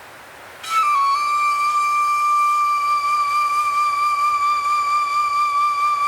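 Flute-like wind instrument in ambient music sounding one long held note, entering just under a second in with a small drop in pitch and then holding steady with a slight waver. A soft wind-like hiss lies underneath.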